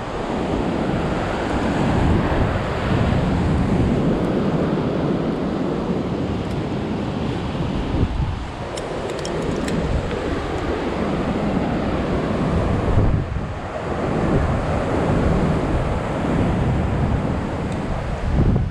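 Wind buffeting the microphone of a head-mounted camera, swelling and easing every few seconds, mixed with surf breaking on the rocks below. A few faint clicks about nine seconds in.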